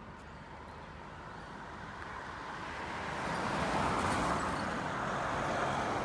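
A pickup truck passing close by on the road: its tyre and engine noise swells to a peak about four seconds in, then fades away.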